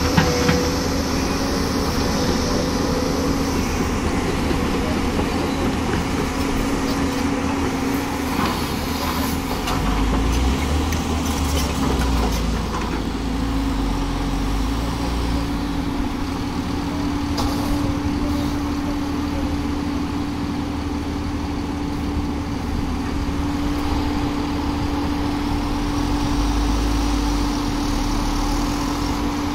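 Heavy diesel engines of a tracked excavator and a tipper truck running steadily, with a constant engine hum. The low rumble swells about a third of the way in and again near the end, and a few short knocks come through in the first two-thirds.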